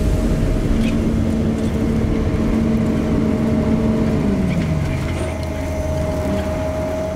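An engine running with a steady low rumble and a high whine; its note climbs right at the start, holds, then drops away about four and a half seconds in.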